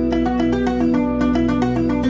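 Music: a fast plucked-string melody of quick, short notes over a held low drone.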